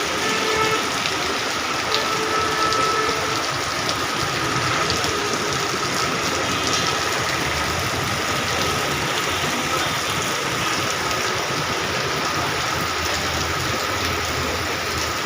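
Heavy rain falling, a steady even hiss with a faint steady tone running through it.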